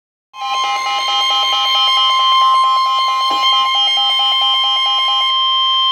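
Emergency alert attention tone: a steady, loud high tone, consistent with the NOAA Weather Radio 1050 Hz warning alarm tone, sounding a moment in and signalling a severe thunderstorm warning. Over it a second, rapidly pulsing beep of about five a second runs until near the end.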